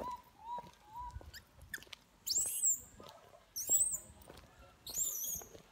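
Baby macaque crying: a couple of short low whimpers, then three shrill, very high-pitched screams about a second and a half apart. This is the distress crying of an infant that its mother will not let nurse.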